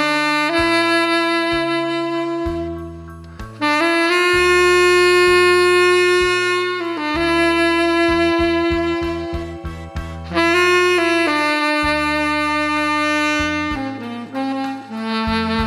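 Tenor saxophone playing a slow melody in long held notes, with shorter notes near the end, over a backing track with a stepping bass line.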